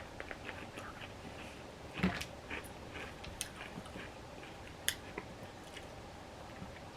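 Faint scattered clicks and soft taps, with a sharper tap about two seconds in and another about five seconds in.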